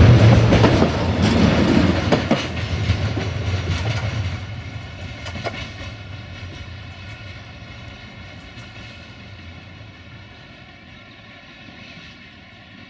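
Wagons of an intermodal freight train, pocket wagons loaded with lorry trailers, rumbling and clacking over the rail joints close by. About four seconds in the sound starts to fade as the train moves away.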